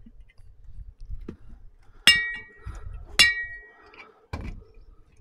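Beer bottles and cans being shuffled on a tabletop: two sharp, ringing glass clinks about a second apart, among softer knocks and taps.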